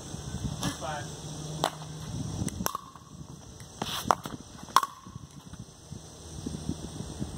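Pickleball rally: a plastic pickleball is struck by paddles and bounces on a concrete court, giving about five sharp pocks at irregular intervals. The two loudest come a little past the middle.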